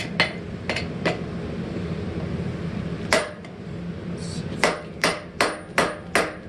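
Hand hammer striking hot steel on an anvil, rounding out the edges of a forged hammer head: sharp blows in two runs, a few in the first second, then after a pause of about two seconds a quicker run of blows near the end.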